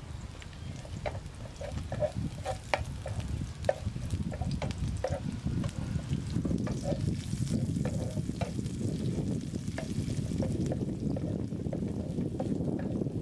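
Stir-frying in a frying pan: a spatula clicks and scrapes against a plate and the pan as chopped ingredients are pushed in and stirred, over a steady sizzle. The clicks are thickest in the first half, and the sizzle grows stronger from about halfway through.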